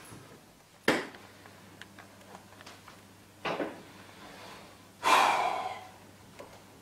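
A man's sharp, forceful breaths as he strains through a set of one-arm dumbbell triceps kickbacks: three exhalations, the loudest about five seconds in.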